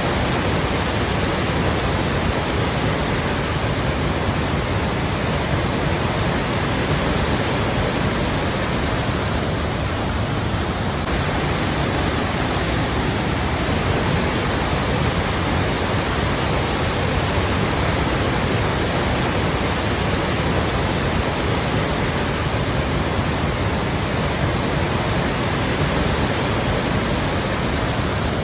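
Steady rush of flowing water, an even, unbroken hiss with no separate splashes or breaks.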